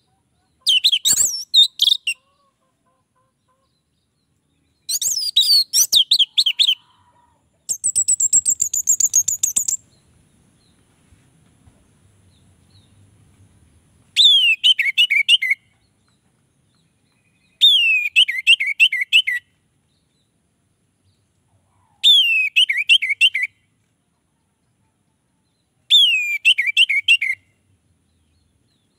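Orange-headed thrush singing in short phrases of one to two seconds with pauses between. The later phrases come about every four seconds, each a falling whistle followed by a quick run of notes.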